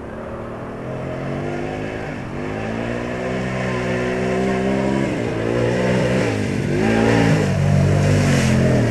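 ATV engine revving as it drives through deep mud, its pitch climbing and dropping several times and growing louder as it comes closer. Mud and water spray near the end.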